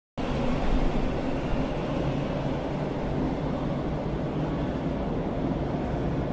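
Steady rumbling noise of a moving vehicle with a low hum, cutting in abruptly just after the start.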